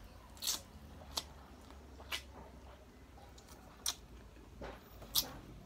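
Close-up mouth sounds of eating fried chicken and rice by hand: about five sharp, wet lip smacks and chewing clicks at irregular intervals over a low steady hum.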